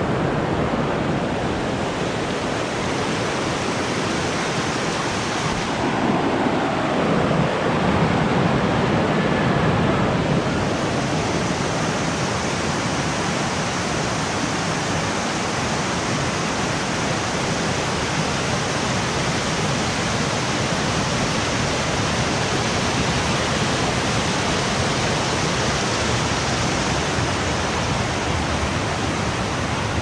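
Steady rushing of cascading water, an even hiss that grows louder and deeper for a few seconds about six to ten seconds in.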